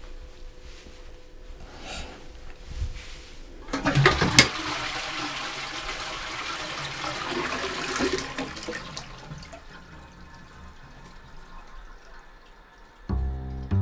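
Close-coupled toilet flushing: a clunk about four seconds in, then rushing water that fades away over the next several seconds.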